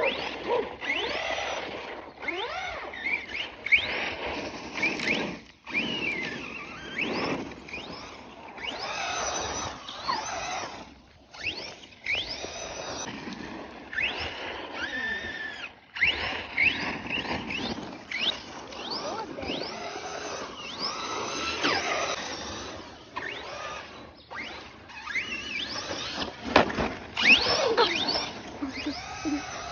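Radio-controlled car skidding: repeated squeals that glide up and down in pitch, coming in short spells with a few brief breaks.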